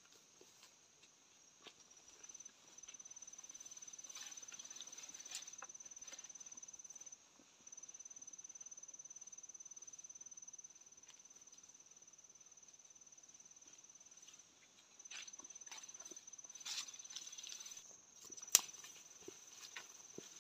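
An insect trilling steadily at a high pitch, breaking off briefly a couple of times, over soft rustling of leaves and undergrowth. A single sharp click stands out near the end.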